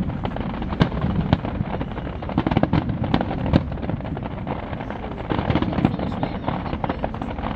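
Fireworks going off: many sharp bangs and crackles in quick, irregular succession over a steady low rumble.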